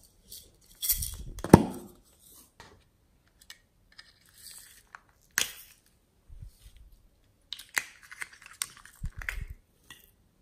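Small plastic slime and clay containers handled and opened by hand: irregular clicks, snaps and crinkly rustles with short pauses between them. The loudest is a sharp snap about a second and a half in.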